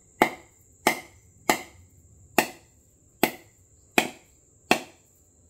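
A hammer knocking on the hard shell of a whole coconut held in the hand, to crack it open: seven sharp taps at a steady pace, roughly one every three-quarters of a second.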